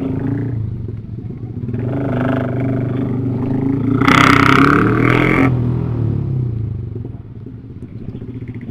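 Motorcycle engine running during a ride, with road and wind noise. About four seconds in, a louder rushing noise lasts about a second and a half, then the engine note falls away and the sound grows quieter.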